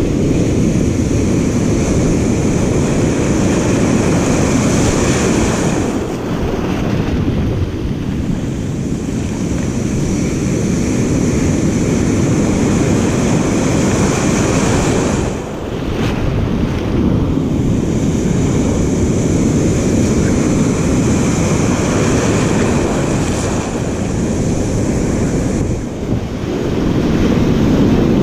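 Rough ocean surf breaking and whitewater foaming around the wader, with wind buffeting the microphone. It dips briefly twice, about halfway through and near the end.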